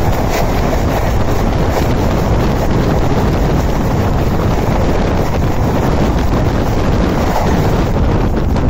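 An express train's coaches rushing past at speed on the adjacent track as two trains cross, blended with the rumble of the moving train, with heavy wind buffeting the microphone.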